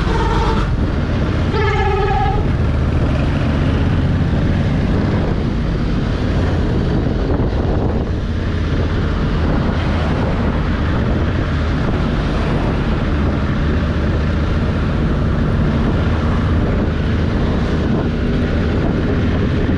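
Honda Africa Twin 1100's parallel-twin engine running steadily under way, mixed with wind and road noise. A vehicle horn sounds briefly about two seconds in.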